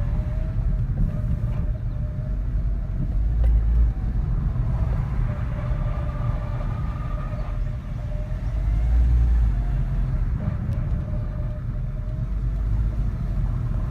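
Suzuki Swift Sport's CVT transmission whining over the engine and road rumble while driving: a thin, steady whine that wavers slightly in pitch and comes and goes. It is the abnormal noise of a faulty CVT.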